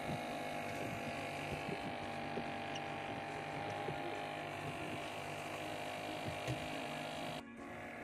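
A steady low hum made of several constant tones, with a few small knocks scattered through it. It drops out briefly near the end.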